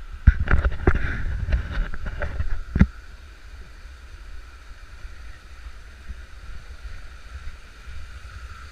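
For about the first three seconds, a loud rumble with several sharp knocks on the camera microphone. After that, a small mountain creek runs as a steady rushing hiss.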